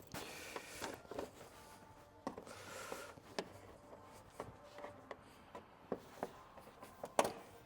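Scattered clicks and knocks with some rubbing and scraping, from hand work on car body parts and their fasteners, with one sharper knock about seven seconds in.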